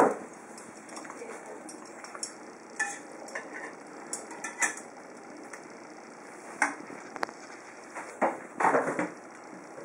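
Metal ladle and chopsticks clinking and scraping against a wide metal hot pot as food is stirred and added, a few separate clinks over a low, steady hiss, with a louder cluster near the end.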